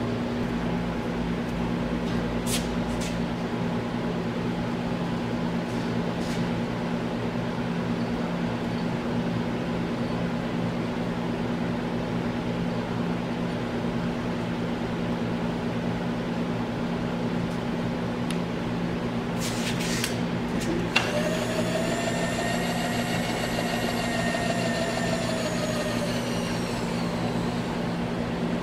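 Bridgeport vertical milling machine running with a steady electric hum, with a few scattered clicks. About two-thirds of the way through, a click is followed by the table power-feed motor's whine, which rises and then falls in pitch over about six seconds as it drives the table.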